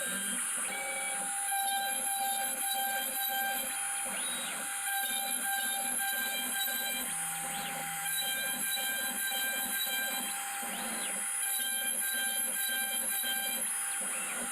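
CNC router machining wood: the spindle runs with a steady whine while the stepper motors drive the axes, a few times rising and falling in pitch as the motion speeds up and slows down.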